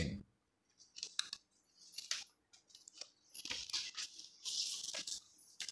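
Faint paper handling: a few light clicks and taps, then paper rustling for about two seconds from about three seconds in, as a sheet of written notes is moved about.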